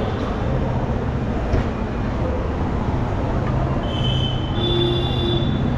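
Train running on the tracks, a steady rumble with a low hum, and a high wheel squeal that sets in about four seconds in.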